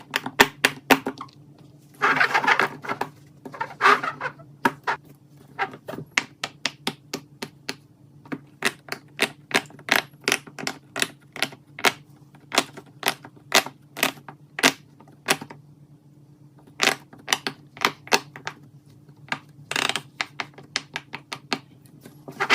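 Keyboard typing: rapid, irregular key clicks in runs, with short pauses between bursts. A steady low hum sits underneath, and short swishing noises come about two, four and twenty seconds in.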